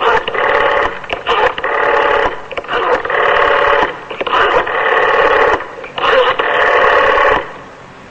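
A telephone number being dialled on a rotary dial: about six bursts of dial whirring, each a different length as the dial runs back after each digit, stopping near the end.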